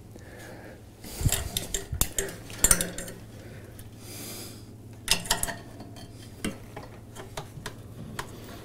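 Hands working among the parts and wiring under a washing machine's tub, making scattered clicks and small metallic rattles in a few clusters, with a brief scraping rustle about four seconds in. A faint steady low hum runs beneath.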